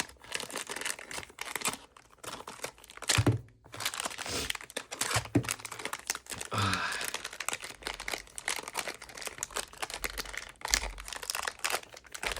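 Plastic packaging crinkling and rustling with irregular crackles as a speed cube's box is being opened and unwrapped, with a few soft handling thuds.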